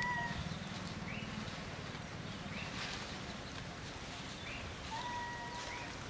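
Outdoor ambience with animal calls: short rising chirps about every second and a half, and one long, steady whistle-like call about five seconds in.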